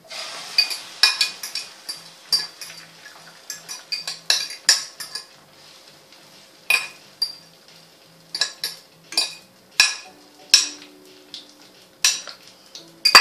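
Metal spoon clinking and scraping against a ceramic bowl in a run of irregular sharp taps, as okra-and-egg batter is scraped out into a pot.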